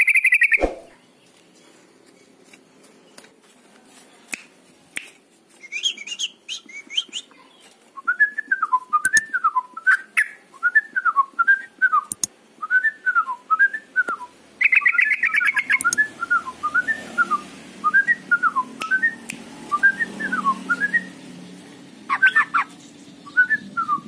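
Caged yellow-vented bulbul singing: a long run of rising-and-falling whistled notes, a rapid buzzy trill about halfway through, and scattered higher chirps. A short ringing chime sounds at the very start.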